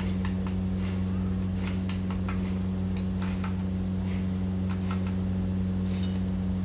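Light, irregular metallic clicks and taps as an end plate is seated onto a Tata 950 truck gearbox housing and worked with a metal bar, about a dozen in all. A steady low hum runs underneath throughout and is the loudest sound.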